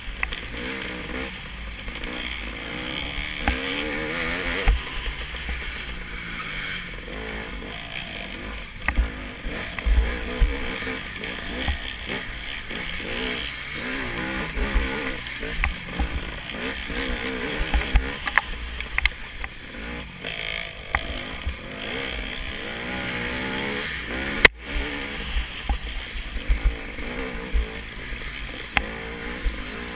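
Off-road dirt bike engine heard close from the bike's own mounted camera, its pitch rising and falling continually with the throttle as it rides a rough forest trail. Wind flutter on the microphone and scattered knocks from bumps run underneath, with one sharp jolt late on.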